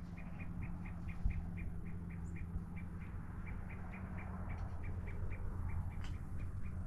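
A small animal chirping in a rapid, even series of short high chirps, about five a second, over a low steady hum.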